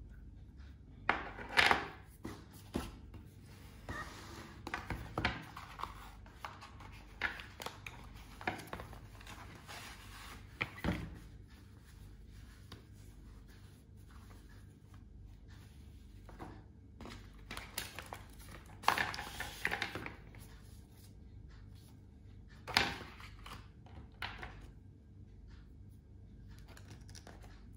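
Cardboard packaging and small gadget accessories handled by hand: scattered rustles, taps and clicks, a few of them louder.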